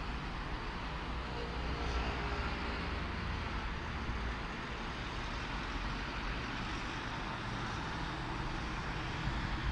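Steady hum of city road traffic, with one passing vehicle's engine heard more clearly about two seconds in.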